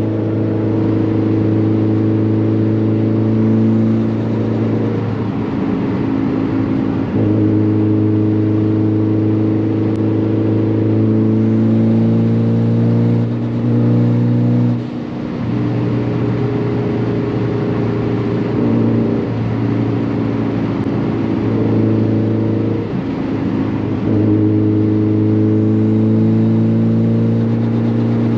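Mitsubishi Lancer Evolution X's turbocharged 2.0-litre four-cylinder, with an open dump and full titanium exhaust, droning steadily at cruise inside the cabin. The drone breaks up briefly a few times before settling back to the same steady note.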